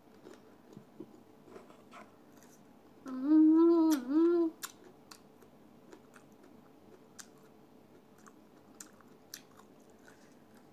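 Close-up mouth sounds of someone chewing soft ripe mango, with scattered small wet clicks and smacks. About three seconds in comes a loud hummed "mmm-mm" of enjoyment lasting about a second and a half.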